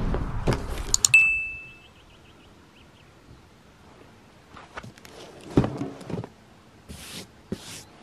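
A click and a short bell ding that fades over about a second, as in a subscribe-button sound effect. After a quiet stretch, a cardboard box is handled on grass: a few knocks and one solid thud in the middle, then two brief rustles near the end.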